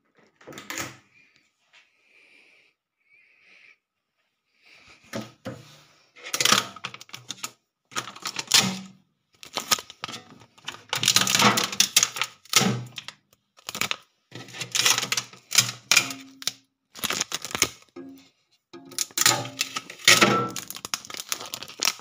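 A new fridge's door is pulled open. Then blue transit tape is peeled off its plastic and glass shelves and crisper drawer in repeated crackling bursts, with plastic parts clicking and rattling.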